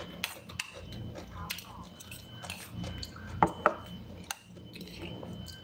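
Metal fork clinking and scraping against a ceramic bowl, with chewing between the clinks; two sharper clinks come about three and a half seconds in.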